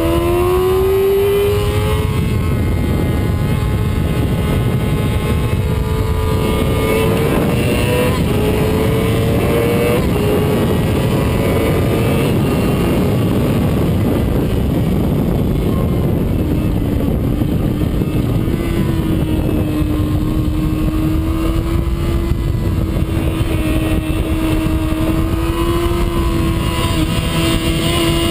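Yamaha YZF-R6 inline-four engine heard from on board over heavy wind noise, pulling hard through the gears with the note climbing in steps at each upshift in the first half, then holding a near-steady high note in the second half.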